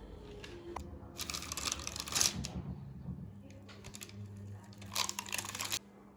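Two bursts of rustling, crinkling handling noise, about a second in and again near the end, as hands work the rolled-out cookie dough and cutters, over a faint steady hum.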